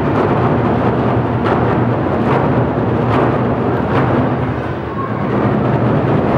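Korean drum ensemble, barrel drums (buk) and large daebuk drums, played together in a loud, dense rolling beat. Sharper accented strokes stand out a little under a second apart in the middle, and the playing eases briefly about five seconds in.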